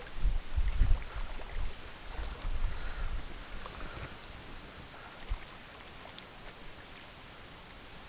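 Small hooked mirror carp splashing at the surface close to the bank as it is played in. The splashing is loudest in the first second or so and dies away after about four seconds.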